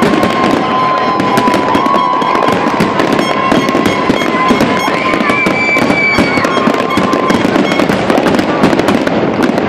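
Large aerial fireworks display in a dense barrage: many shells bursting in quick succession with continuous crackling. A steady high whistle runs through most of it and ends about seven and a half seconds in.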